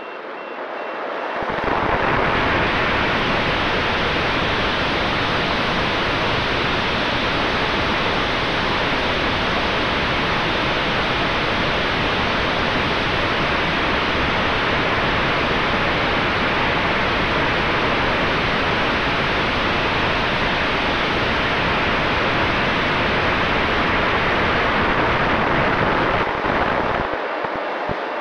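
Steady rushing wind over the onboard camera of a Multiplex FunJet Ultra 2 RC plane in fast flight, building up about a second in, with a faint steady whine from its electric motor and propeller underneath. The deep rumble of the wind drops out near the end.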